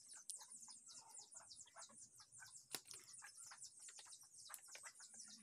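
Faint, rapid high-pitched chirping, many short calls a second, with a single soft click just under halfway through.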